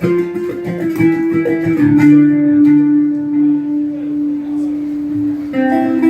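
Guitar playing an instrumental passage: a single note held for most of it, over lower notes, with fresh notes struck near the end.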